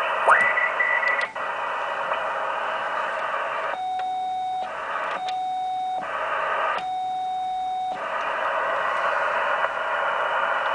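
Yaesu FT-1000MP Mark-V HF transceiver's receiver audio: band hiss through the narrow receive filter, with a whistle sweeping up in pitch about half a second in as the tuning knob passes a signal. Midway come three long steady beeps of one pitch, and the hiss drops out during each.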